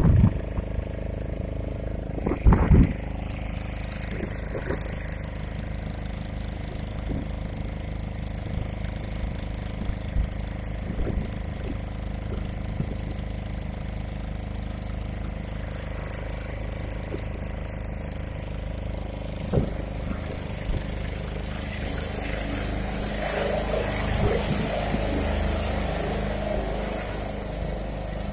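Small passenger boat's outboard motor running steadily under way, with a high hiss of wind and water over it. A few loud thumps come about two and a half seconds in.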